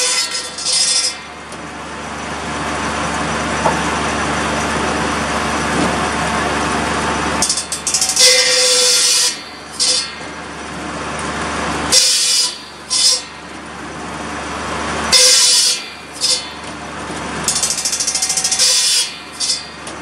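Tractor-driven buzz saw, its big circular blade powered off a Kubota B7100 diesel compact tractor, cutting sawmill slabs into firewood lengths. A loud cut comes every few seconds, about five in all, over the steady running of the tractor and the spinning blade.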